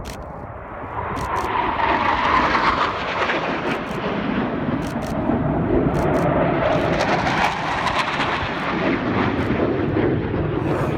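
Panavia Tornado jet flying past, its twin engines building to a loud, steady jet noise about a second in. The pitch of its tones slides downward as the jet passes, twice over. A few faint sharp clicks sound along with it.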